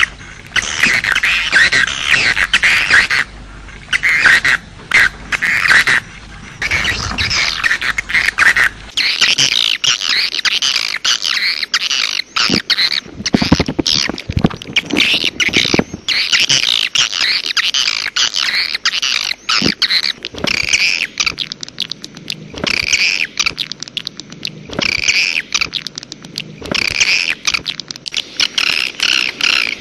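A bird calling over and over in rapid phrases of high notes, with brief pauses between phrases; a call track played to lure wild birds.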